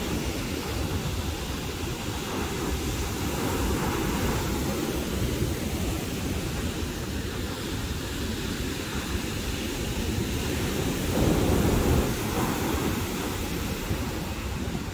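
Wind rumbling on the microphone over the steady wash of breaking surf, swelling louder for about a second around eleven seconds in.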